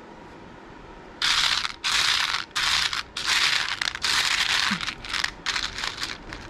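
Hand rummaging through a plastic basket of small skull beads, the beads clattering against each other and the basket. The clatter starts about a second in as a run of loud bursts, and the bursts grow shorter and choppier near the end.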